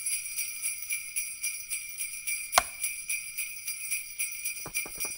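Jingle bells shaken in a steady rhythm, several shakes a second, with one sharper, louder strike about halfway through.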